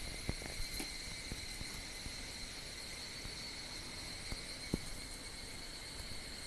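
Chorus of higurashi (evening cicadas) at dawn, merging into a steady, high-pitched ringing drone. A few faint low knocks sound over it.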